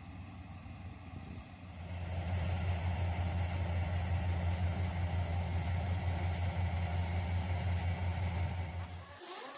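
Yanmar YH470 rice combine harvester's engine running with a steady low hum. It grows louder about two seconds in and cuts off near the end.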